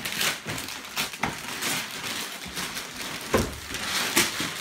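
Wrapping paper being torn and crumpled: a steady rustle broken by several sharp rips.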